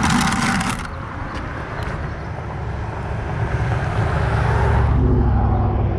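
A car driving past, its engine and tyre noise swelling to a peak about four to five seconds in and then easing off. A brief rush of noise comes at the very start.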